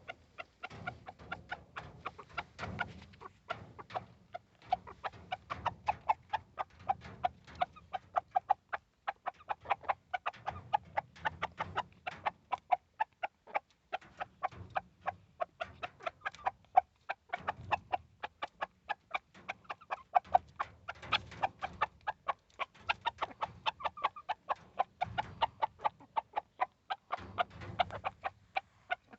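Backyard chickens clucking steadily, many short clucks in quick succession.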